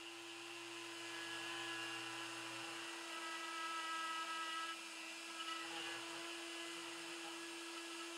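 Handheld high-speed rotary tool with a small pointed bit grinding a spot into the steel hex head of an oil-supply banjo bolt, the first step in drilling it for safety wire. It makes a steady high-pitched whine.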